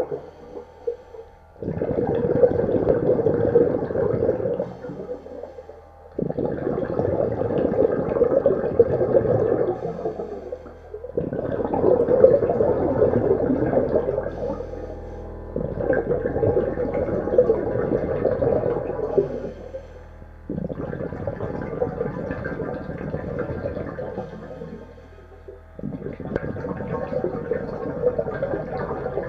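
Exhaled air bubbling from a diver's mouthpiece on a homemade hookah breathing rig fed by a 12-volt air pump, heard underwater. Long bursts of bubbles come about every five seconds, one per breath out, over a steady low hum.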